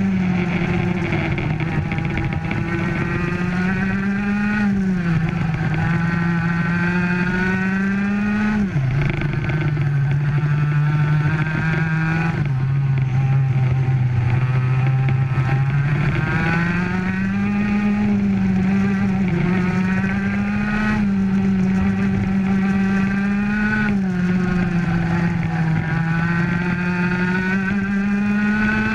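Racing kart's two-stroke engine at full throttle, heard onboard. Its pitch climbs steadily along each straight and drops sharply several times as the kart slows for corners.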